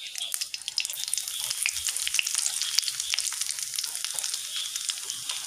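Hot oil sizzling and crackling in a kadai with mustard seeds and curry leaves, with many sharp pops over a steady hiss, as fenugreek powder goes into the tempering over a low flame.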